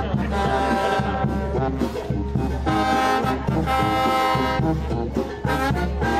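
Music playing: a tune with long held notes over a steady low bass.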